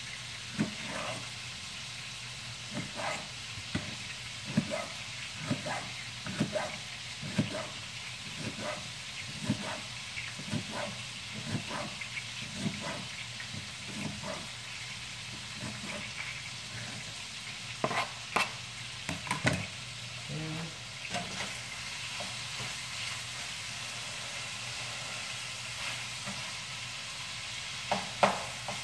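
Chef's knife chopping a green bell pepper on a plastic cutting board, about one chop a second, stopping about two-thirds of the way through. Under it runs the steady sizzle of ground beef frying in a pan.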